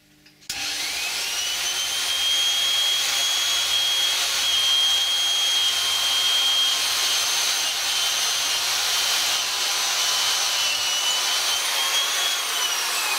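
Vintage 1/4-inch Rawlplug electric drill starting up about half a second in, its whine rising as the motor spins up, then running steadily and slowly while the bit bores through a block of wood. Near the end the whine starts to fall as the drill winds down.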